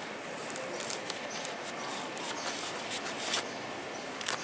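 Steady background hiss with a few short clicks and knocks from the camera being handled and moved.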